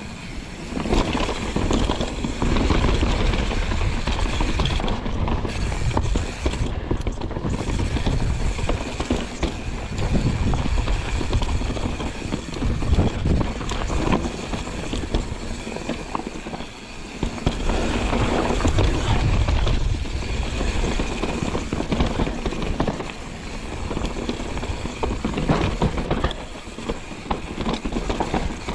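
YT Jeffsy full-suspension mountain bike ridden fast down a rough, bumpy trail: tyres rolling over dirt and stones and the bike rattling over the bumps, with a brief lull about two-thirds of the way through.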